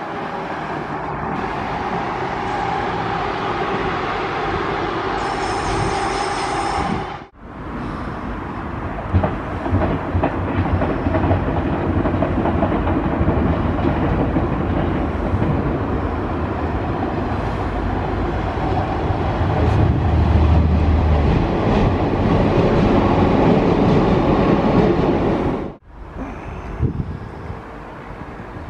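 Trains passing through a station. An electric multiple unit runs past close by with a steady rolling noise and a brief high whine, which cuts off suddenly. Another train then passes, louder, with wheel clatter and a low rumble that builds and then cuts off.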